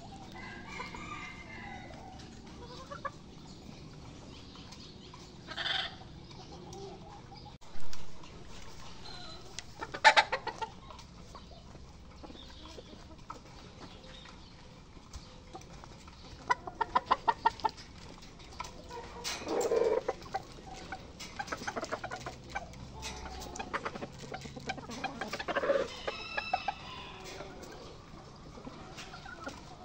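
Game chickens clucking in a pen: scattered clucks and short calls, with quick runs of clucking notes about ten seconds in and again around seventeen seconds. A loud bump comes about eight seconds in.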